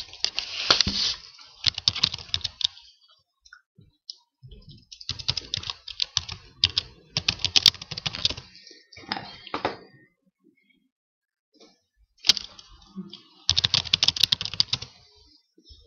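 Typing on a computer keyboard in three bursts of quick key clicks, with short pauses between.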